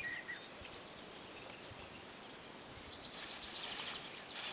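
Small birds chirping briefly near the start over outdoor background noise, then from about three seconds in a crinkly rustling of a plastic bag being handled.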